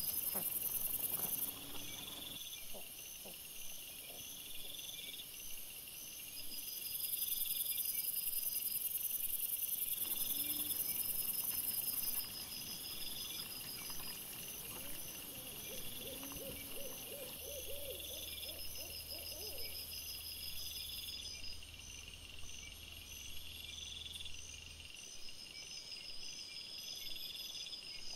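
Crickets chirping at night in repeated pulsed trills, over a steady high hiss.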